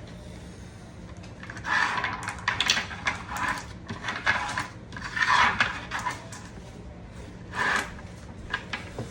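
Rifle cartridges clinking and clattering against each other as they are handled and loaded into a magazine loader, in several short bursts of metallic clatter.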